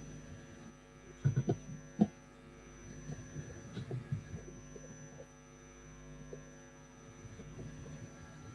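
Steady electrical hum on an open microphone, with a thin high whine above it. It is broken by a few loud thumps a little over a second in and another about two seconds in, then softer knocks a second or two later.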